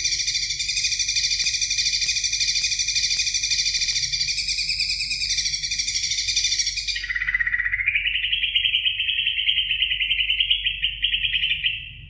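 Greater green leafbird (cucak ijo) singing a loud, rapid, continuous chattering trill. About seven seconds in, the song switches to a lower, slightly rising trill that stops near the end.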